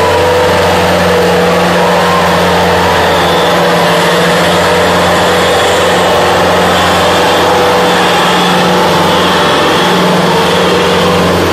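Two diesel tractor engines, a Preet and a Hindustan, running hard under load while straining against each other in a back-to-back tractor tug-of-war. The drone is loud and steady, with no big rise or fall in pitch.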